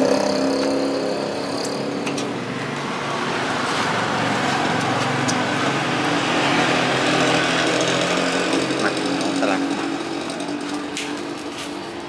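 An engine running steadily, with a few light clicks and knocks over it.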